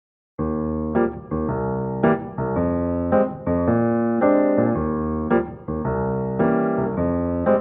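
Background music: electric piano chords, changing about once a second.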